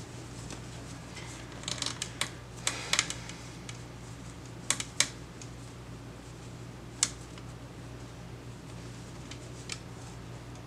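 Scattered light clicks and brief rustles from hands handling small things, bunched in the first half and then single clicks, over a steady low hum.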